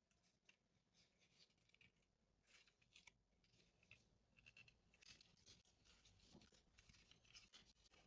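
Faint rustling and light ticks of children's cotton clothes on small hangers being handled and held up.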